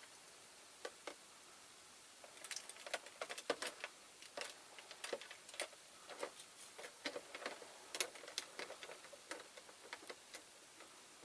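Faint, irregular crackling ticks, sparse at first and then several a second from about two seconds in: a caustic soda bath working on a diecast model's paint as it starts to peel off.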